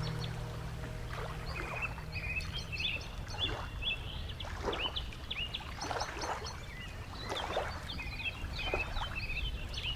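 Small birds chirping over and over in short, high, hooked calls. Soft water splashes come every second or so over a steady low rumble.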